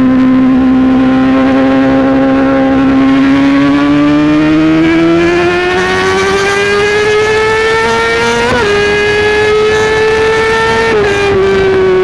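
Yamaha YZF-R6 inline-four engine with an SC-Project exhaust, heard from the rider's seat, running at high revs. The pitch holds steady, then climbs gradually under throttle. A quick upshift comes about eight and a half seconds in, then the pitch climbs a little more and falls as the throttle eases near the end.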